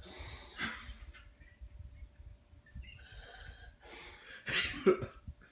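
A sleeping man snoring and breathing noisily through his open mouth, in uneven breaths with a loud snort near the end.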